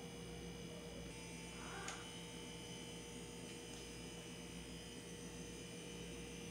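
Faint, steady electrical hum with a small click about two seconds in.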